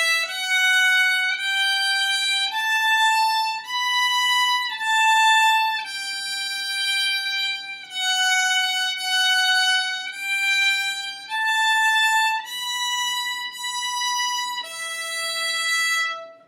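Violin playing a slow beginner exercise on the E string: bowed notes of about a second each, stepping up from E through F sharp, G, A and B, back down, up again, and ending on E.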